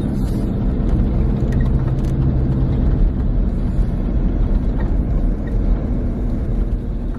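Land Rover Discovery 2 driving slowly on a snow-covered road, heard from inside the cabin: a steady low engine drone with tyre and road noise.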